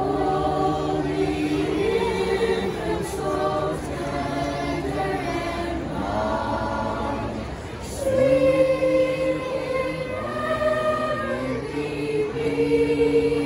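Children's choir singing a Christmas carol, many young voices together, with long held notes.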